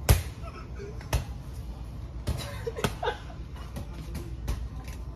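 A basketball being dribbled on a hard floor: sharp bounces about once a second at first, then lighter and quicker bounces in the second half.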